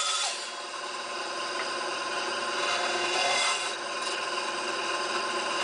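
Bandsaw running steadily as its blade cuts through a small wooden block, a steady machine tone with the noise of the blade in the wood.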